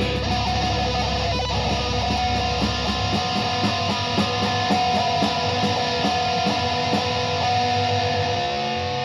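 Live rock band with electric guitar: a held note rings over a fast, even picked pulse, and the deep bass drops out about three seconds in.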